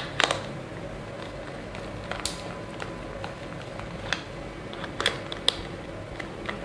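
Small scattered clicks and ticks of a hand screwdriver turning a screw into a plastic cap, a few seconds apart, over a faint steady hum.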